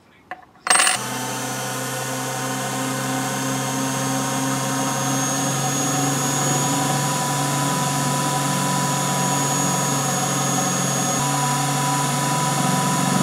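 EMCO Unimat SL lathe, set up as a vertical mill, switched on with a click under a second in, then running steadily, its belt-driven spindle turning a small end mill that cuts a groove around a brass cylinder. Its tone shifts slightly near the end.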